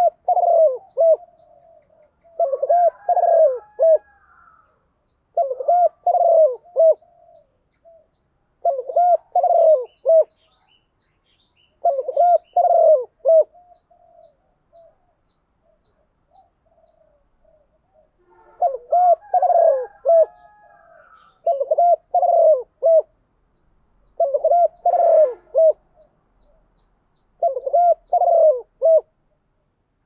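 Spotted dove cooing its calling song in repeated short phrases, about nine of them, each roughly three seconds apart, with a pause of a few seconds midway. It is a decoy bird calling to lure wild spotted doves.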